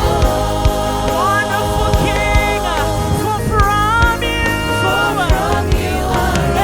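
Gospel worship music: voices singing a melody over a band with sustained bass and a regular drum beat.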